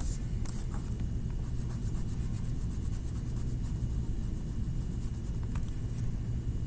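A black pencil scratching faintly on paper as outlines are traced, in quick short strokes, over a steady low hum.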